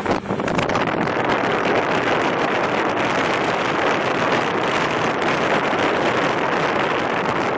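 Steady wind noise on the microphone over a motorboat running at towing speed, with water rushing past the hull and wake.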